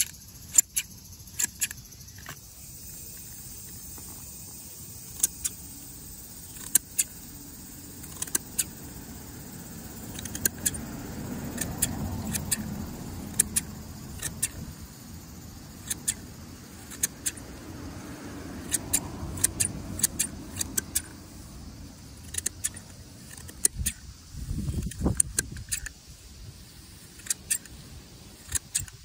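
KAMAKI hand grass shears snipping lawn grass: sharp metallic clicks of the blades closing, at an uneven pace of about one or two a second, with short pauses.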